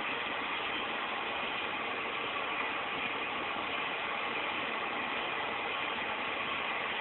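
Steady, even background noise with no separate events, like a machine running.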